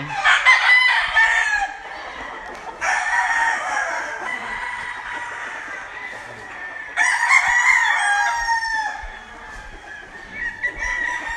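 Gamecocks crowing in the pens, one long crow after another, four in all, the loudest at the start and again about seven seconds in.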